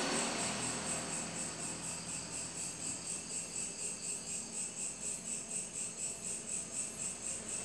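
Cricket chirping in a steady high-pitched rhythm, about four pulses a second.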